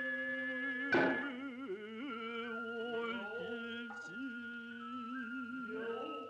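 Noh theatre music: slow chanting voices with a wavering pitch under a held, high flute line that steps down in pitch, with one sharp drum stroke about a second in.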